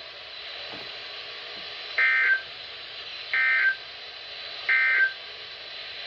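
EAS/SAME end-of-message data bursts from NOAA Weather Radio, played through a Midland WR-400 weather radio's speaker: three short, loud two-tone digital screeches about a second apart, with steady radio hiss between them. They mark the end of the warning broadcast.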